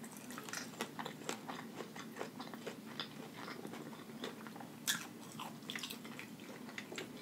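Close-up chewing of fried chicken wings with the mouth closed: soft, irregular wet chewing and crunching clicks, with a sharper click about five seconds in.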